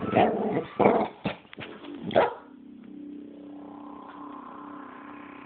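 A dog making a run of short, loud bark-like noises, about four in the first two seconds. A steady low drone follows.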